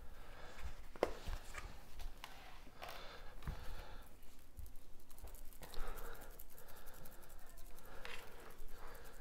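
Shaker bottle of dry rub being shaken over raw pork ribs: a few short bouts of soft rattling, with light clicks and knocks from handling the bottle and tray in between.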